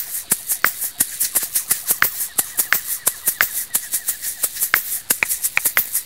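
Asalato (kashaka), pairs of cord-linked gourd shakers, swung and flipped so the shells clack together in quick, uneven clicks, about five or six a second, over the rattle of their filling.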